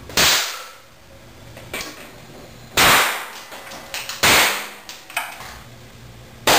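Four sharp bangs from small homemade explosive devices going off on a concrete floor, each with a short fading tail.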